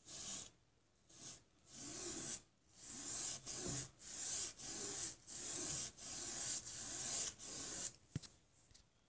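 Paintbrush bristles scrubbing back and forth on stretched canvas, a scratchy rubbing stroke about every half second.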